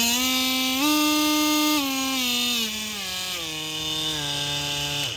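Ryobi One+ cordless oscillating multi-tool running free with no load. Its pitch rises slightly about a second in, then steps down in several stages as the variable speed is turned down. It stops suddenly near the end.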